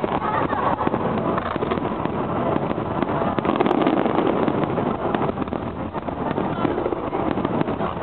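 Fireworks display: a continuous dense crackle of many small bangs from shells and ground fountains going off together, with no pauses.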